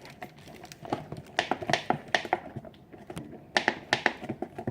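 Scattered light clicks and taps in small clusters, with quiet room ambience between them.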